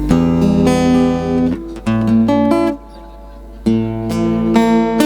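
Acoustic guitar strumming chords, breaking off for about a second near the middle before the strumming picks up again.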